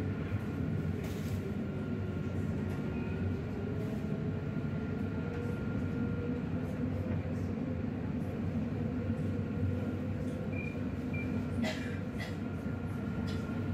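A tram running, heard from inside the passenger car: a steady rumble of wheels on rail with a faint motor whine that slowly shifts in pitch. There are a few sharp clicks or knocks about twelve seconds in.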